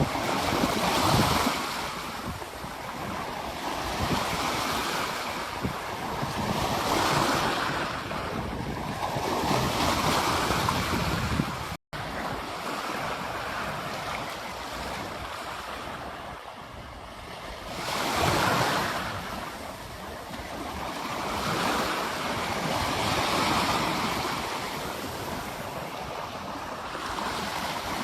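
Ocean surf breaking and washing up a beach, a new surge of water every few seconds. The sound cuts out for a split second about twelve seconds in.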